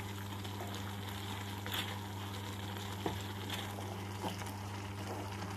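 Wooden spatula stirring wet Maggi noodles and peas in a non-stick pan as they simmer: soft scraping with a few light taps over a steady low hum and hiss.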